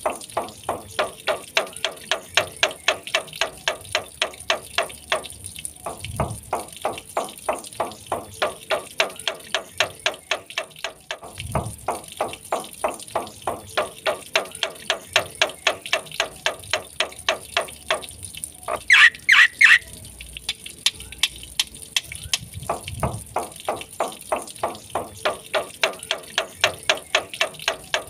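Black-winged starling (jalak putih) calling in long runs of fast, repeated chattering notes, about four to five a second, broken by short pauses, with a louder, higher burst of calls about two-thirds of the way through.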